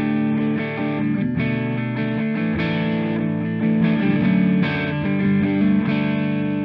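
Squier '70s Classic Vibe Starcaster semi-hollow electric guitar played with overdrive. Chords are struck roughly once a second and let ring.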